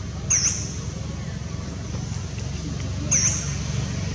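Steady low rumble like distant traffic, with a short, high-pitched squeaky chirp about a third of a second in and another about three seconds in.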